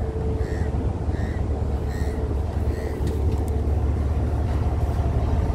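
Steady low rumble of an LNG carrier's machinery and exhausts heard around the funnel casing.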